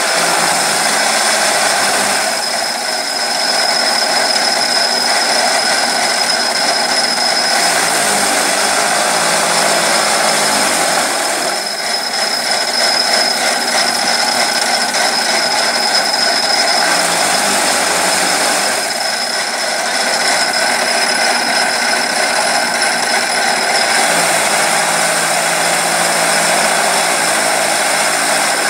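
Electric chaff cutter running, chopping hand-fed rice straw and blowing the chaff out of its spout, with a steady high whine. Its sound shifts every few seconds as bundles of straw go through the blades.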